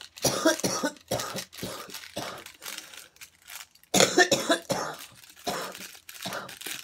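A woman's coughing fit: a long run of repeated coughs, the hardest about four seconds in.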